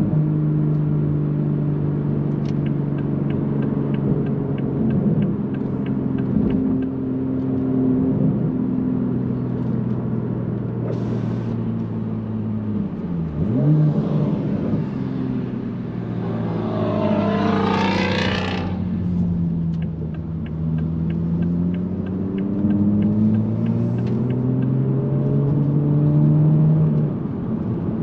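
Toyota GR Supra (A90)'s B58 turbocharged inline-six running through an AWE Touring Edition exhaust while driving, its note slowly rising and falling. About halfway through, the revs dip sharply and pick up again. A rushing hiss swells and fades about two-thirds through, and a light, quick ticking runs through two stretches.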